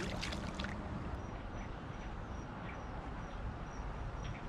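A fish splashing hard in the shallows at the water's edge, a short burst of splashing right at the start. Then steady outdoor background with a faint high chirp repeating two or three times a second.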